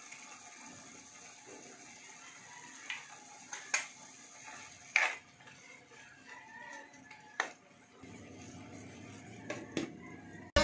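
A spatula stirring in a nonstick frying pan: a few sharp scrapes and clicks of the utensil against the pan over a faint steady hiss. Near the end a glass lid is set on the pan with a couple of quick clicks.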